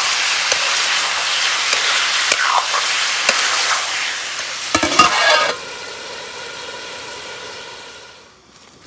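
Chicken pieces sizzling in hot oil in a steel wok while a metal ladle stirs them, with scattered scrapes and a few knocks of the ladle on the pan about five seconds in. The sizzling cuts off suddenly about five and a half seconds in, leaving a fainter steady sound that fades away.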